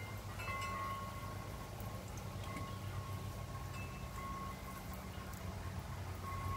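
Wind chimes ringing: several clear tones that come in and fade slowly, over a low steady hum.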